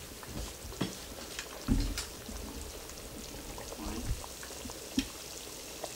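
A tablespoon scooping flour out of a plastic container and tapping it into a nonstick skillet: a few scattered knocks and scrapes, loudest a little under two seconds in and again at five seconds, over a low steady hiss.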